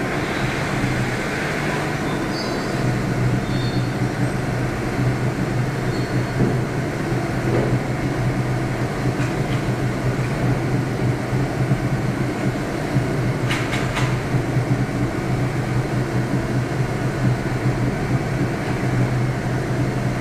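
DMG DMU60 monoBlock five-axis machining centre milling a metal part: a steady drone of the spindle and cutting, with a low hum underneath. A couple of sharp ticks about two thirds of the way through.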